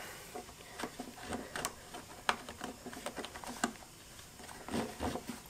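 Faint, scattered clicks and rustles of a rower foot strap being handled and pushed into the plastic footplate housing.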